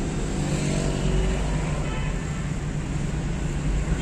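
Steady road and engine noise heard from inside a moving car in traffic. The faint engine drone of nearby motorcycles and a tractor rises and falls in the first couple of seconds.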